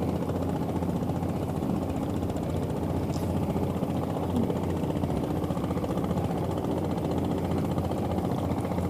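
Small fishing boat's engine running steadily at low trolling speed, an even, rapid low chug.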